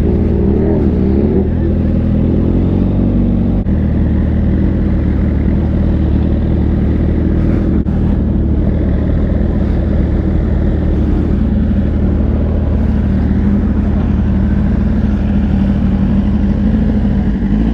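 Motorcycle engine running steadily at low revs, its note shifting slightly about four seconds in.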